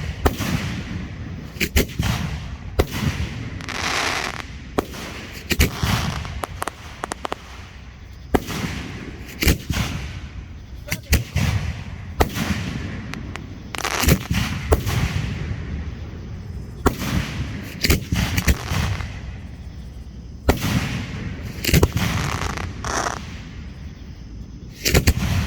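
Fireworks going off in a rapid string: sharp bangs about every second or two, several trailing off into a hissing crackle.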